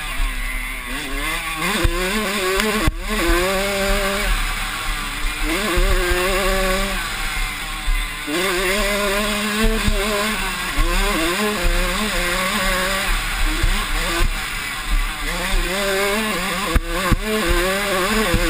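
Yamaha YZ85 two-stroke dirt bike engine at race pace, its pitch rising through the revs, dropping off sharply a few times and climbing again, over steady wind and trail noise.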